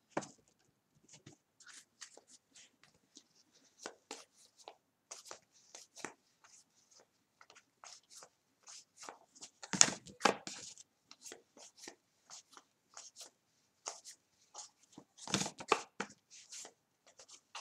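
Trading cards being handled: thumbed through in the hand and laid onto a stack, a string of short flicks, slides and taps of card stock, with louder handling about ten seconds in and again near the end.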